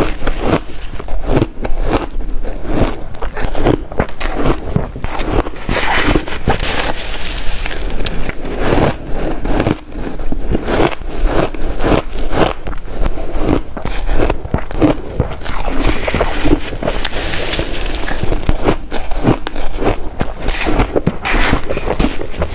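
Shaved ice crunched between the teeth close to the microphone: a dense, irregular run of crunches that keeps going without a break.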